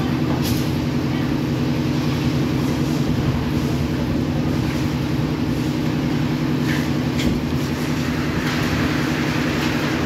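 Drum concrete mixer running: a steady mechanical drone with a low hum, with a few short sharp clinks about half a second in and twice about seven seconds in.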